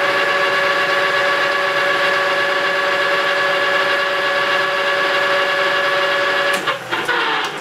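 Old manual lathe running at steady speed with an aluminum billet spinning in the chuck, its headstock giving a steady whine of several even tones. A few clicks come near the end, and then the whine starts to drop in pitch as the spindle slows.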